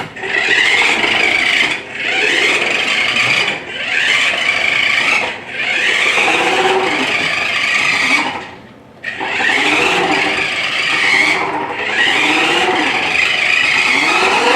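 A battery-powered remote-control toy car's small electric motor and gearbox whirring as it drives in short spurts. The pitch rises and falls with each run of about two seconds, with brief stops between runs and the longest stop about eight seconds in.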